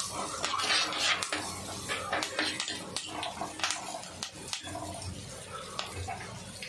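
Shallots, green chillies and garlic sizzling in hot oil in a clay pot, with a slotted metal spatula scraping and clicking against the clay as it stirs them.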